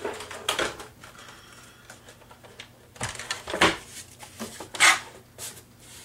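Papers shuffling and a paper trimmer being set down and pushed into place on a desk: a few short clacks and rustles, the loudest about three and a half and five seconds in.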